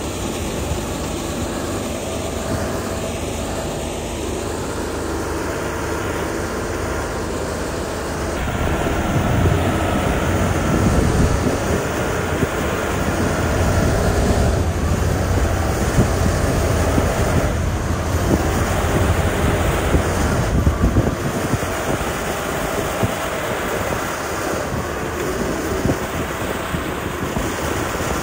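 Diesel engine of a heavy road-construction machine working, a steady low rumble that grows louder about eight seconds in and eases back off a little past twenty seconds.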